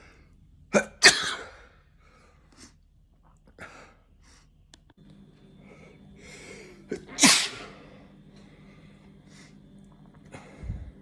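A person sneezing twice: a sharp, loud sneeze about a second in, then another loud sneeze about seven seconds in.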